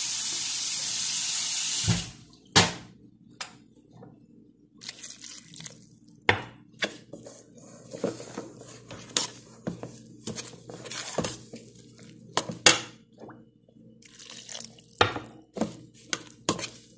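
Water runs steadily for about two seconds and cuts off, then hands mix flour and water into dough in a stainless steel bowl, with irregular knocks and scrapes against the metal.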